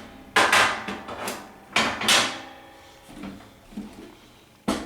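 Metal rod of a Tubz vending tower being pulled out of the machine: a series of clunks and scrapes, some with a short metallic ring, with a last sharp knock near the end.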